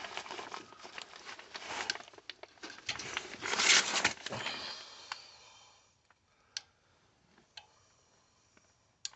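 Rustling and clattering of hands working on furnace parts, with many small knocks, loudest about four seconds in, then a few single sharp clicks near the end.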